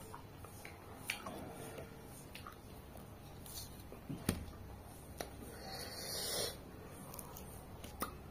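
An orange being pulled apart into segments by hand: soft rubbing and tearing with a few light clicks, and a longer rustling tear about six seconds in.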